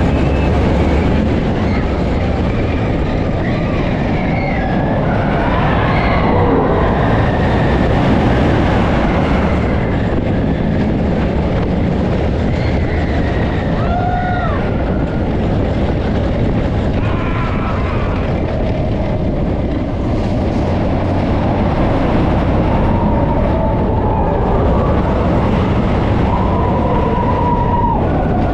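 Expedition Everest roller coaster train rolling along its steel track with a steady loud rumble, broken now and then by short, bending squeals from the wheels.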